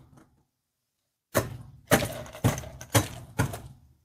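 A wine glass rim pressed and knocked down onto a plate of Pop Rocks candy to coat it. There are five knocks about half a second apart, starting about a second in, each with a short gritty trail.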